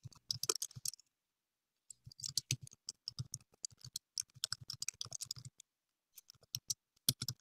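Typing on a computer keyboard: quick runs of keystrokes, pausing briefly about a second in and again near the end.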